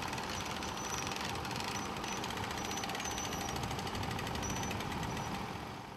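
Portable sawmill's small gasoline engine running steadily with a rapid chatter, fading out at the very end.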